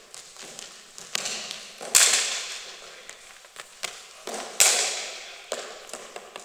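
Two sharp cracks of a hard cricket ball striking, about two and a half seconds apart, each followed by a long echo around a sports hall, with lighter knocks in between.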